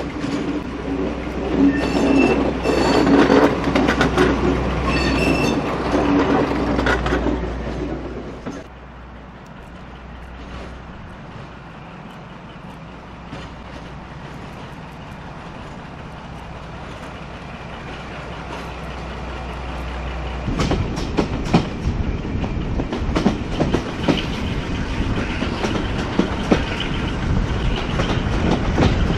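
A heritage railway train running on the rails. For the first eight seconds or so it is loud, with a steady low hum and some tonal squeal. It then quietens for a stretch, and from about two-thirds in turns loud again with rapid clatter of wheels over the track.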